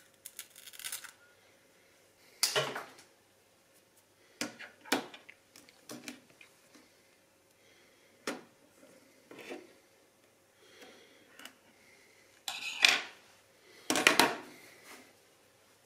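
Plastic parts of an Alcatel 3C phone's display and frame being handled and set down on a table: scattered clicks, taps and short scrapes, the loudest a cluster about twelve and a half seconds in and another about fourteen seconds in.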